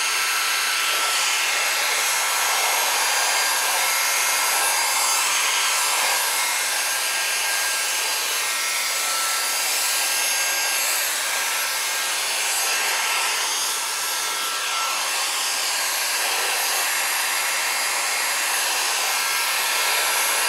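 Electric heat gun blowing steadily, warming a tight-fitting scooter tire to soften the rubber so it can be worked onto the rim.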